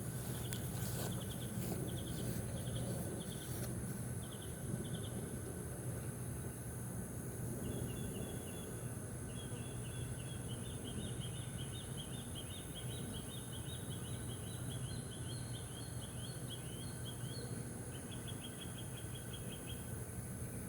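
Rural outdoor ambience: trains of short, high chirps come and go, with a long run of chirps in the middle and a fast, even burst near the end, over a steady low hum.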